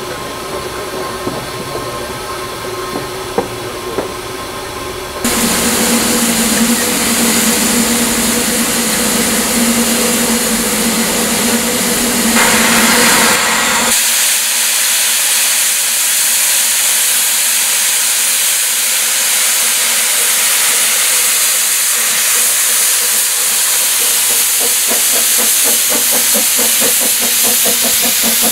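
Narrow-gauge double Fairlie steam locomotive hissing loudly and steadily, blowing off steam at its safety valves and cylinder drain cocks. The hiss starts suddenly about five seconds in after a quieter stretch. Near the end, quick rhythmic exhaust beats begin as the engine moves off.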